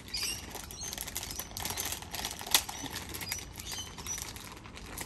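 Plastic food packet crinkling and rustling as it is handled, a run of irregular crackles with a sharper snap about two and a half seconds in.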